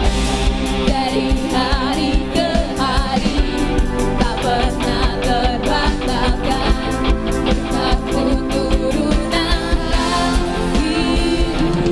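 Worship band music with singing: voices hold and bend long sung lines over guitar, bass and regular drum beats.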